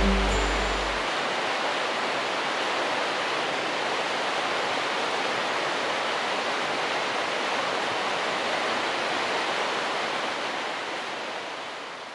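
Mountain river water rushing steadily, fading out near the end.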